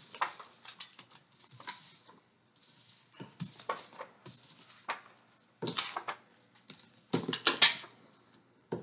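Beaded bracelets and a metal watch band clinking against each other and the desk as a hand shuffles and handles oracle cards: scattered light clicks and clinks, with a couple of brief shuffling rustles.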